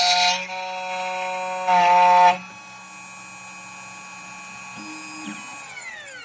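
CNC key cutting machine's cutter spindle running with a steady whine, with loud grinding as the cutter bites into the SX9 metal key blank during the first half second and again about two seconds in. Near the end the spindle winds down, its pitch falling, as the cut finishes.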